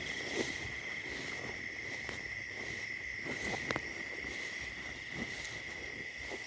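A steady, high-pitched insect drone with a pulsing shimmer above it, over irregular soft crunching footsteps through dry vegetation.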